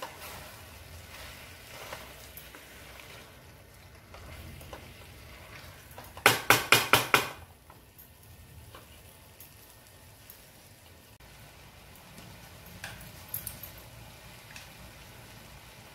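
Rice and chicken masala sizzling faintly in a kadai while being stirred with a wooden spatula. A little under halfway through comes a quick run of about six sharp knocks.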